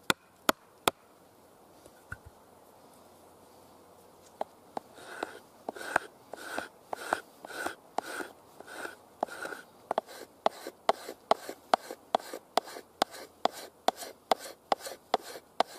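Short wooden baton knocking on the spine of a Fallkniven Idun knife whose blade is set in the top of a tree stump, batoning it through the wood. Three sharp knocks at the start, then a steady run of knocks at about two to three a second.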